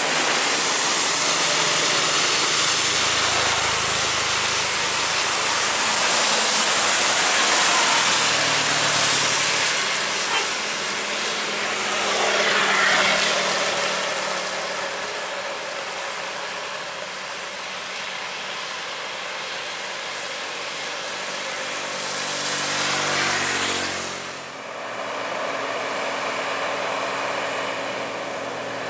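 Road traffic passing on a wet highway: heavy trucks and motorcycles going by over a steady hiss of tyres on the wet road. Near the end one vehicle passes close, its engine note falling as it goes by.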